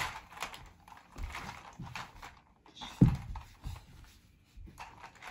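Soft knocks and rustles of a toddler playing with a plastic toy on a carpeted floor, with one sharp thump about three seconds in.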